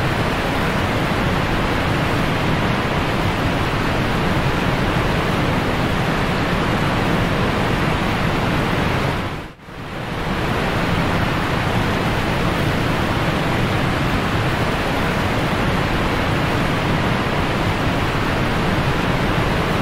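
Steady rushing water noise of an aquarium's filter running, which dips briefly and comes back about halfway through.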